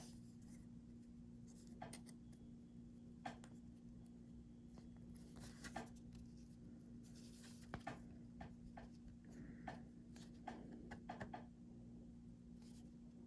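Near silence with faint, scattered taps and rustles of a trading card being handled, over a steady low hum.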